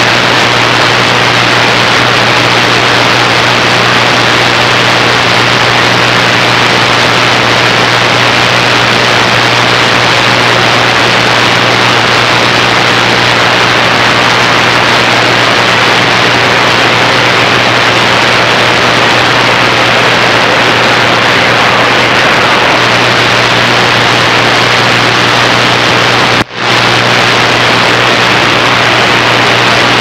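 Loud, steady AM static hissing from a Kenwood transceiver's speaker on CB channel 28 with no station talking, over a low steady hum. It cuts out for a moment about 26 seconds in.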